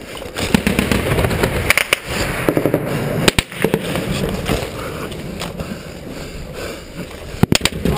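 Gunfire in a close firefight: many sharp, irregular shots, some in quick runs, with especially loud cracks about three and a half seconds in and near the end.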